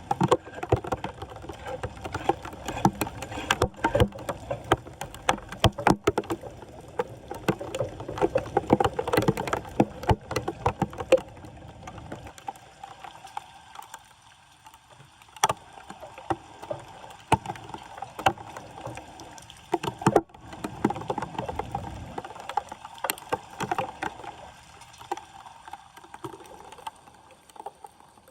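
Floodwater sloshing and splashing at a clogged street drain, with many small clicks and scrapes of debris being moved. The activity is heaviest for the first dozen seconds and again briefly about twenty seconds in, then dies down.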